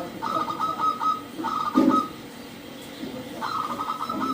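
Zebra doves (perkutut) calling: rapid runs of short repeated notes, with a brief louder low note a little under two seconds in. There is a quieter pause of just over a second before the runs resume.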